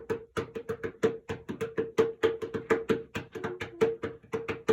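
A ringing rock (lithophone stone) being struck rapidly and repeatedly, several strikes a second. Each strike rings out with the same clear, steady pitch, the tamborim-like sound of this stone.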